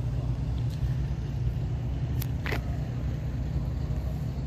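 Late-1970s Chevrolet Malibu coupe's engine idling close by, a steady low rumble. A short sharp squeak cuts in about two and a half seconds in.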